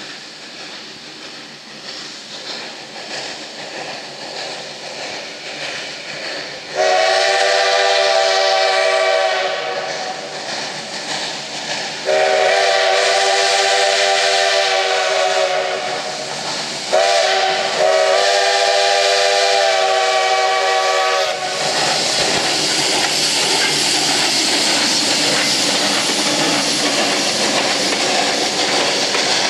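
Steam tank engine working hard up a grade, its exhaust growing louder as it approaches. The whistle sounds three long blasts, a chord of several notes, the last two nearly run together. From about two-thirds of the way in, a loud steady hiss of steam and exhaust as the engine draws close.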